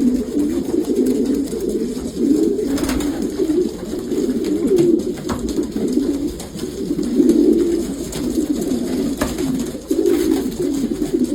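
Many young racing pigeons cooing together, their overlapping coos forming a continuous low hum, with a few brief clicks.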